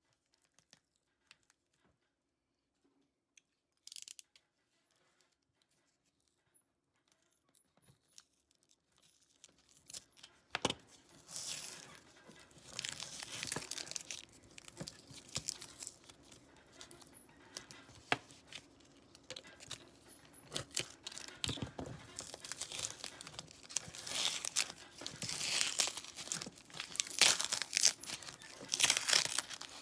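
Irregular scraping and rubbing strokes from hand work on an old folding knife. They start about a third of the way in, after near silence with a few small clicks, and grow louder in surges toward the end.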